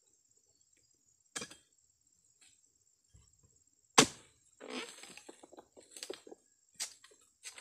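Pole-mounted harvesting chisel jabbed into the base of an oil palm frond: a light click, then a sharp crack about four seconds in, the loudest sound, followed by a couple of seconds of crackling and rustling of the frond and another sharp crack near the end.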